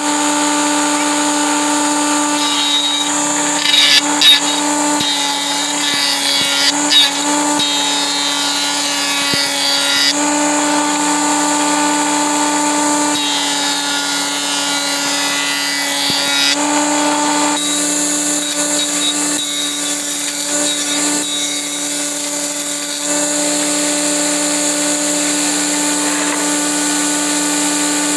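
An electric power tool's motor running with a steady whine, with the sound of the work changing at several points and a few sharp knocks about 4 and 7 seconds in.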